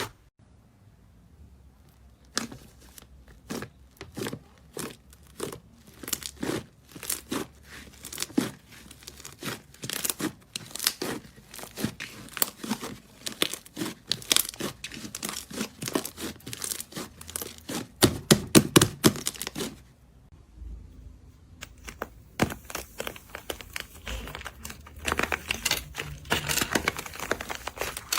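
Slime being squeezed and stretched by hand, giving a quick run of sharp clicking and crackling pops. There is a short lull partway through, and then the crackling comes thicker.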